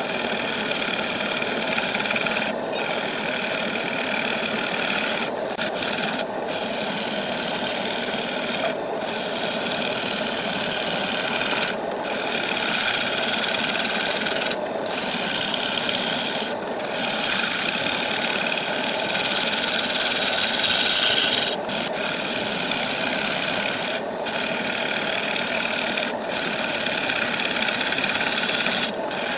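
Turning tool cutting the face of a wooden disc spinning on a wood lathe: a continuous scraping hiss of shavings peeling off. It is broken by brief pauses every few seconds and grows louder and higher for a few seconds in the middle.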